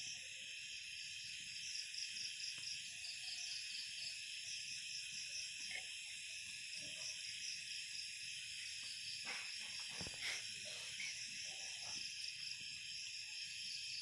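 Night insect chorus: crickets chirring steadily in several high-pitched layers, one of them pulsing rapidly. A few short soft knocks come about nine to ten seconds in.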